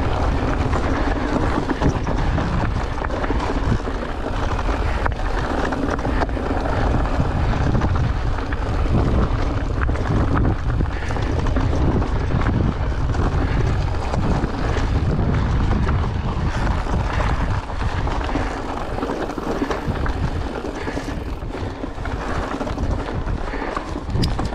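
Wind buffeting the action camera's microphone as an Orbea Wild e-mountain bike rolls over loose, rocky desert singletrack, with steady tyre crunch and frequent small knocks and rattles from the bike over the rocks.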